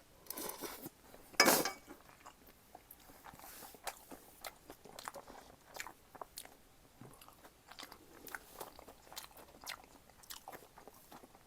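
Close-miked eating of black-bean instant noodles and green-onion kimchi: chewing with many small wet mouth clicks. There is one louder burst about a second and a half in.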